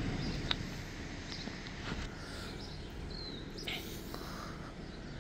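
Outdoor background noise: a steady low rumble with a few faint ticks and one brief high chirp about three seconds in.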